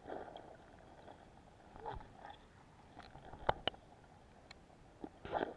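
Muffled underwater sound picked up through an action camera's waterproof housing in a river: a couple of sharp clicks about three and a half seconds in, and short muffled swishes at the start and near the end.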